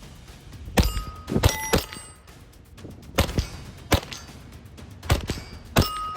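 A string of about seven .22 LR shots from a Hammerli Forge H1 1911 rimfire pistol, several of them followed by the short ringing ping of a struck steel target plate.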